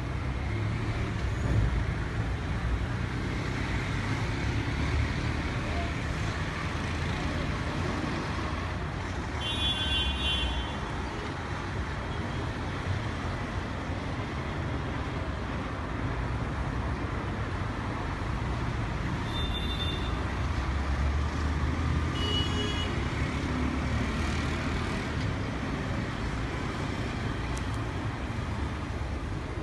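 Road traffic at a busy junction: buses, cars and auto-rickshaws make a steady rumble. Vehicle horns sound three times: about a third of the way in, then twice more in quick succession past the middle.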